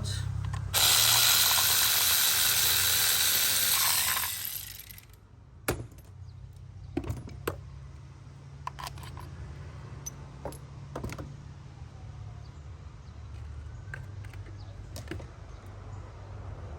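Loud, steady rushing noise for about three and a half seconds, then scattered sharp metallic clicks and clinks of hand tools and parts while the last spark plug is taken out.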